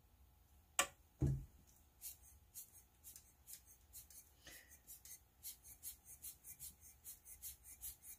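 Rubber air blower bulb squeezed over and over, each squeeze a short hissing puff of air, about three a second and getting quicker near the end, blowing on wet alcohol ink. About a second in come two sharp knocks, the loudest sounds.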